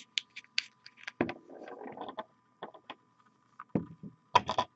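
Scattered light clicks and taps, with a short scrape about a second in and a louder cluster of clicks near the end, as painting supplies are handled on a desk. A faint steady whine sits underneath.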